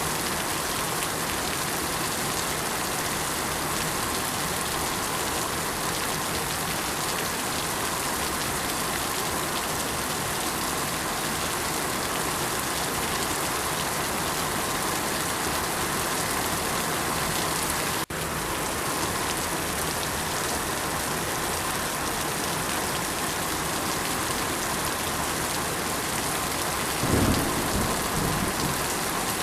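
Steady heavy rain falling in an even hiss. It drops out for an instant about 18 seconds in, and a low rumble swells briefly near the end.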